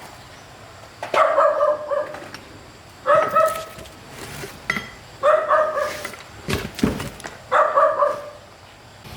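A dog barking four times, each bark drawn out and pitched, about two seconds apart, with a few sharp knocks in between near the end.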